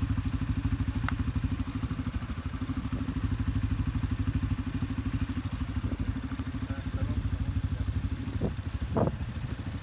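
ATV engine idling steadily, with a fast, even low pulse.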